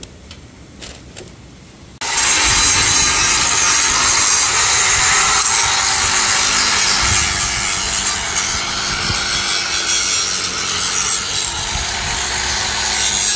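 Corded angle grinder with a cut-off disc cutting through a steel frame: a loud, steady grinding hiss over the motor's whine, starting abruptly about two seconds in after a quiet moment with a few faint knocks.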